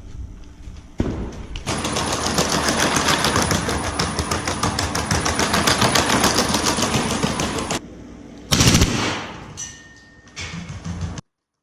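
Machine gun firing on full automatic: a long sustained burst of rapid shots lasting about six seconds, then a single loud bang and a shorter burst near the end, after which the sound cuts off suddenly.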